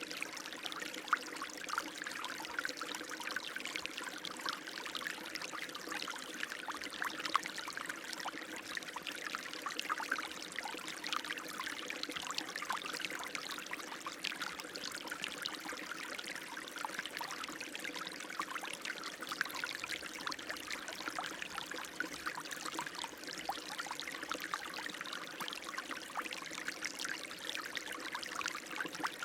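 Running water splashing and trickling steadily, like a small stream or a pour of water, with a fine bubbly splash and no change in pace.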